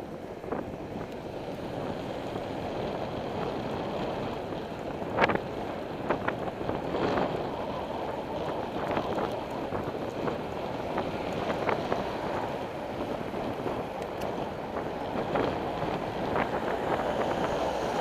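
Wind buffeting the microphone of a cyclist's camera while riding, over a steady rumble of tyres on the road. A few sharp knocks and rattles are heard now and then, the loudest about five seconds in.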